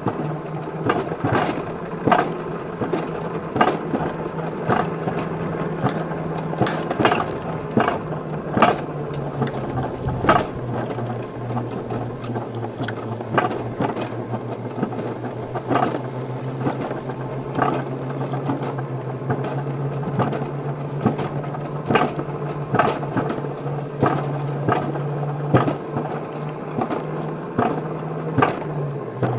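Wiegand alpine coaster sled running along its tubular steel rail: a steady mechanical hum with a sharp click about once a second. The hum drops away at the very end.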